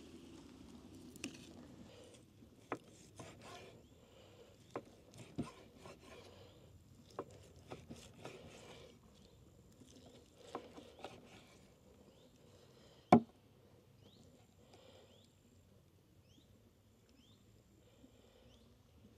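Scattered light knocks and taps of kitchen work on a wooden surface, with one sharp, much louder knock about two-thirds of the way through.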